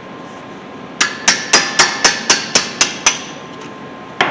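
A run of about ten sharp metallic taps, roughly four a second, then one more just before the end: hand-tool work on the front brake caliper's 12mm bolt, each strike ringing briefly.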